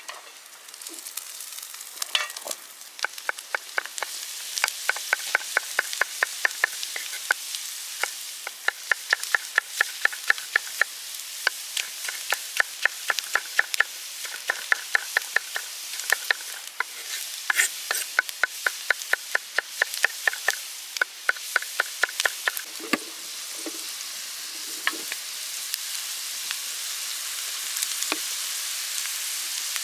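Green peppers and onion sizzling steadily in oil in a large shallow steel pan over a campfire. For most of the first twenty seconds a knife chops tomatoes on a wooden board in quick regular strokes, about four a second; after that only the frying is heard.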